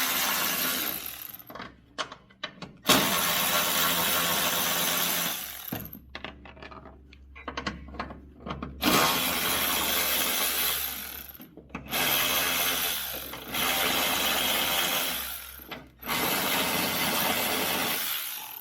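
A handheld power driver running in repeated bursts of two to three seconds, about six times, as it spins out 10 mm bolts. A low steady hum lies underneath.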